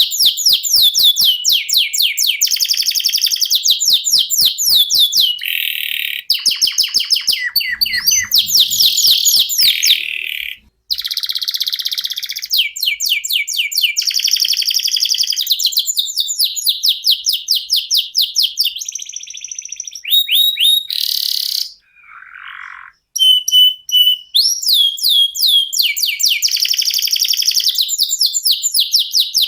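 Domestic canary singing a long rolling song of rapid repeated trills, switching from one trill to another every second or two, with brief breaks about a third of the way in and again near two thirds.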